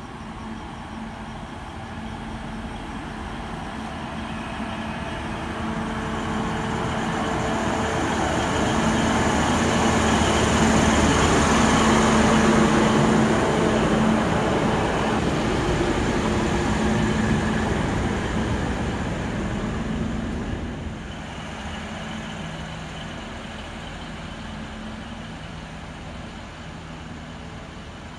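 Two-car Hunter railcar diesel multiple unit pulling into the platform. Its diesel engines and wheels get steadily louder as it runs past close by around the middle. The sound drops at about three quarters of the way through as it slows to a stop, leaving a quieter steady engine hum.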